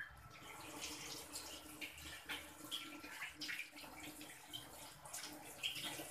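Urad dal bhallas (lentil-batter fritters) deep-frying in hot oil: a steady sizzle with many scattered crackles and pops.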